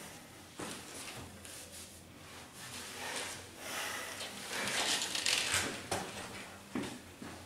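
Clothing rustling as two people embrace, then a few footsteps on a hard floor as one of them walks away.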